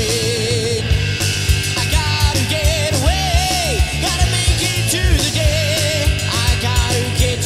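Rock music: a band playing a song with a steady drum beat and a wavering melody line above it.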